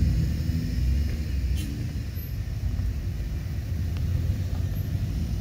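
Suzuki Jimny's engine running low and steady as the small 4x4 rolls slowly past across gravel, heard mostly as a deep rumble.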